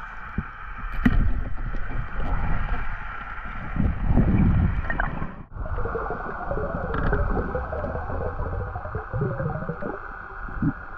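Muffled underwater sound recorded through a camera's waterproof housing: water rushing past with low thumping gusts, changing abruptly about halfway through where the footage is cut.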